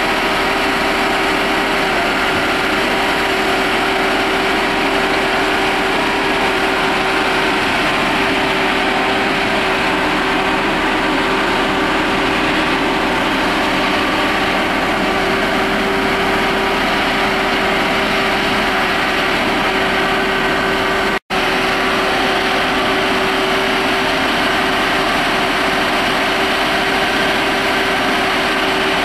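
Diesel engine of a Barko knuckleboom log loader running steadily under hydraulic load as it swings logs, with a constant whine over the engine note. The sound cuts out for an instant about two-thirds of the way through.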